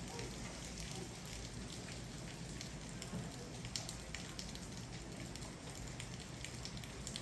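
Steady rain falling, a continuous hiss scattered with many short, sharp drop ticks.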